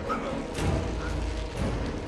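Creaking, stretching sound effects of the black symbiote suit being clawed and pulled, with scattered knocks, over a quiet orchestral film score.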